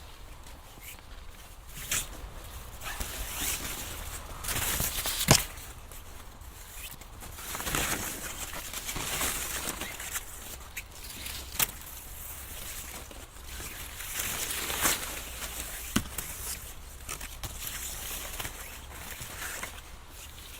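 Rustling of corn stalks and leaves coming in irregular swells, broken by a few sharp single snaps, the loudest about five seconds in, as ears of corn are picked by hand.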